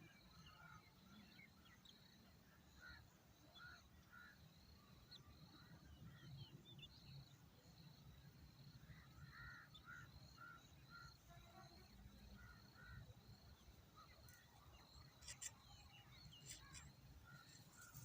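Faint bird calls: short chirps repeated irregularly, over a steady run of high, evenly spaced chirps about twice a second and a low outdoor rumble.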